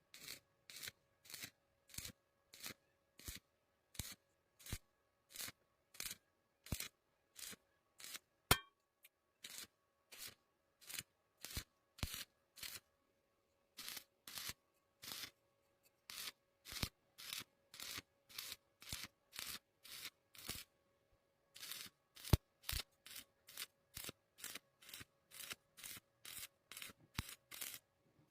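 Welding arc crackling in short, regular bursts, about two a second, with a faint steady hum under them and a couple of brief pauses, as in stitch welding where the arc is struck and broken over and over.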